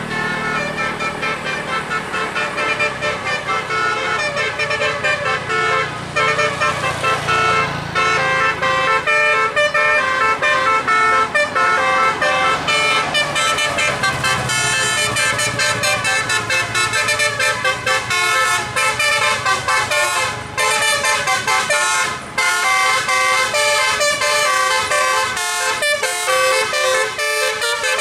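Bus telolet horn, a multi-note basuri-style horn, playing a fast continuous tune. A vehicle engine runs low underneath and fades out about nine seconds in.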